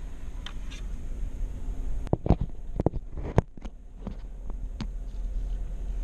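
Low, steady rumble of a vehicle driving slowly on a rough dirt track. A run of sharp knocks and clicks comes in the middle, about a dozen over three seconds.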